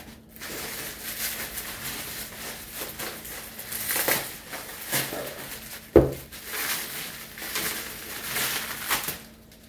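Plastic bubble wrap being crinkled and pulled off a saber hilt, a continuous crackling rustle. There is one sharp knock about six seconds in.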